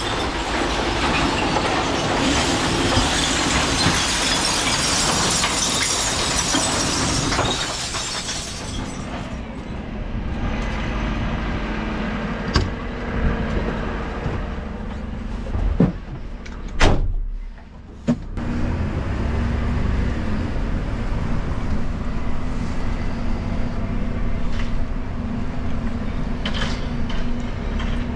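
Glass bottles crashing and crunching in the rear compactor of a Dennis Elite refuse lorry for the first several seconds. The sound then drops to the lorry's engine running steadily, with a few sharp knocks about halfway through.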